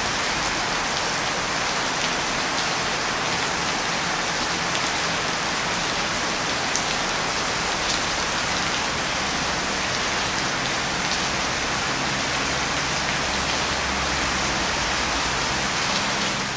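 Heavy rain pouring onto a wet, puddled street: a steady, dense hiss, with a faint low steady hum underneath.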